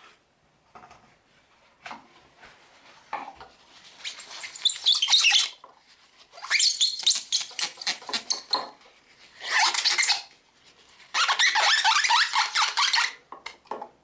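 Cloth rubbing on the plastic of a solar garden light, squeaking in four bursts of one to two seconds each: the squeaky-clean sound of buffing off Meguiar's polish. Faint clicks come between the bursts.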